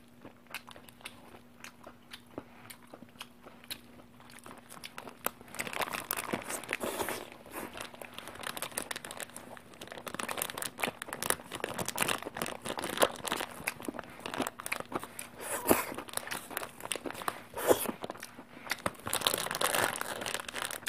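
Chewing, then from about five seconds in a red plastic burger wrapper crinkled and torn by hand in irregular crackling bursts.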